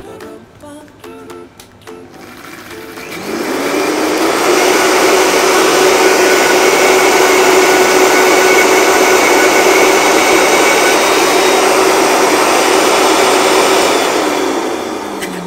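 High-speed countertop blender puréeing boiled watercress with its cooking water into a smooth green sauce. The motor spins up with a rising whine about three seconds in, runs at a steady high speed, then winds down near the end.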